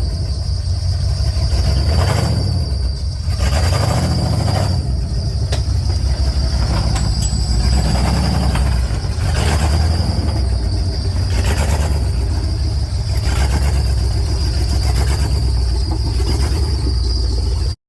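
Vehicle on the move: a steady low road-and-engine rumble with a thin, steady high-pitched whine, swelling every couple of seconds. It cuts off abruptly near the end.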